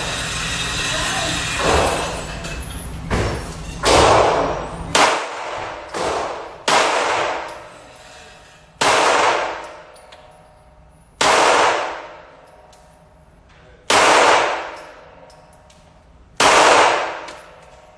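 Gunshots at a shooting range: a quick run of shots in the first seven seconds, then single shots about every two and a half seconds. Each shot rings out in a long echo.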